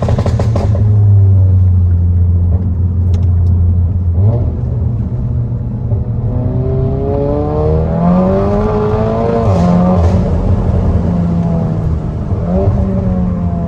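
SEAT Cupra's turbocharged 2.0-litre four-cylinder engine with downpipe and resonator delete, heard from the driver's seat. It holds a steady low exhaust drone at first, then from about halfway the pitch rises and falls as the car accelerates and shifts. A couple of short sharp cracks come near the start.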